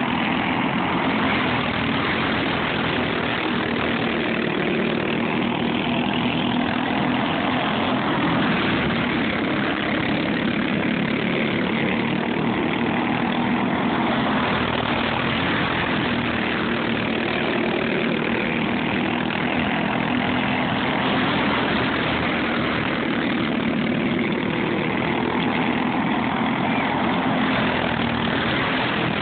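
Several racing go-kart engines running hard, a continuous high-revving buzz whose pitch rises and falls every few seconds as the karts lap the dirt oval.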